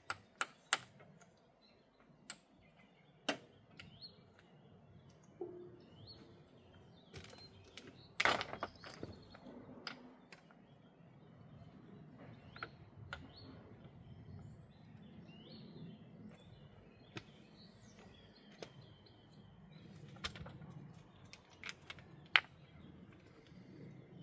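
Irregular sharp knocks of stones clacking against one another as they are picked up and set into a dry stone wall, the loudest near the end. Birds chirp in the background.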